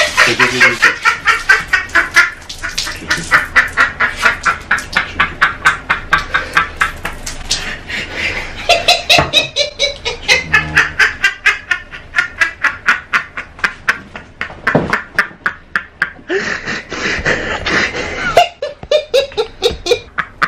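A man laughing hard in long runs of quick 'ha' pulses, about four a second, broken by short pauses for breath.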